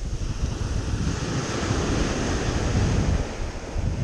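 Small waves breaking and washing up a sandy beach, with wind buffeting the microphone in a low rumble that swells about halfway through.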